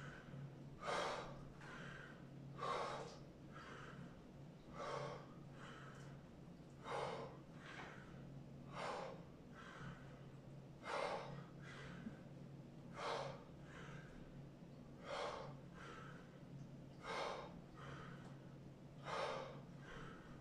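A man's heavy breathing while doing bodyweight squats: a sharp exhale about every two seconds, in time with the reps, with softer inhales between.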